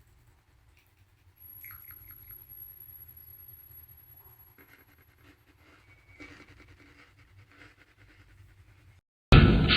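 Faint scratching and rustling handling sounds with a thin high whine in the first half, then loud electronic music starts abruptly near the end.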